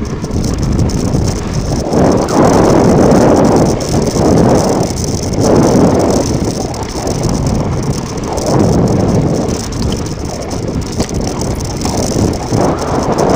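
Mountain bike tyres rolling and sliding over loose volcanic ground on a fast descent, a rough rushing noise that swells and eases every second or two.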